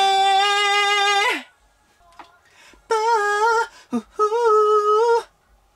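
Male vocalist singing a cappella into a studio microphone during a recording take: a high held note that stops about a second and a half in, then after a pause two short wavering sung phrases at a similar high pitch.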